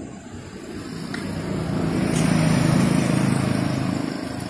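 A motor vehicle's engine passing by: a low rumble that swells to a peak about halfway through and then fades.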